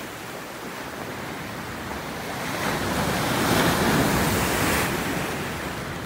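Waves of a choppy Black Sea breaking and washing on the shore, swelling to their loudest about three to four seconds in and then easing off.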